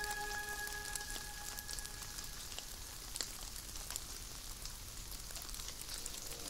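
Light rain ticking on a train cab's windscreen: a faint hiss with scattered tiny taps. A held music chord dies away in the first second or so.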